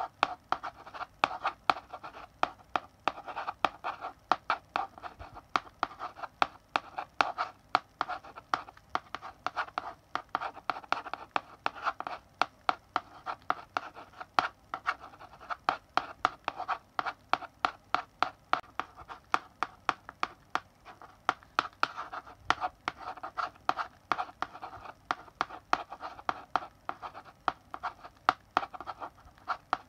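Chalk writing on a blackboard: a steady run of quick, sharp taps and scratching strokes as letters are written, several a second, with short pauses between.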